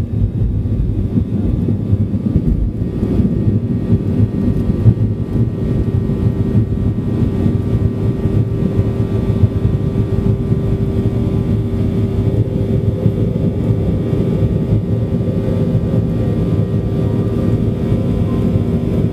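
Boeing 737-800's CFM56-7B turbofan engines at takeoff thrust, heard from inside the cabin through the lift-off and climb: a loud, steady rumble with a steady hum running through it.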